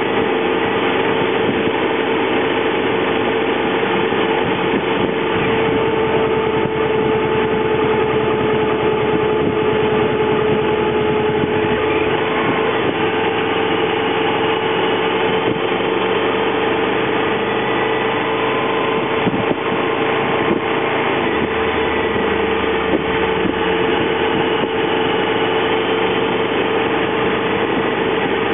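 Honda VFR motorcycle's V-four engine running at a steady, unchanging pace while the bike cruises, one constant tone over a continuous hiss.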